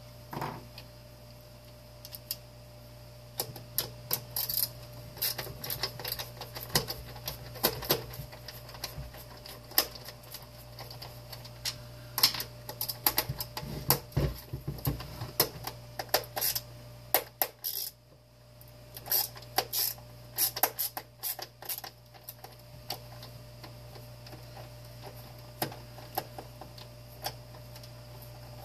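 Irregular clicks, taps and rattles of tools on the plastic and metal parts of a broken space heater being taken apart for scrap, with a brief lull about two-thirds of the way through. A steady low hum runs underneath.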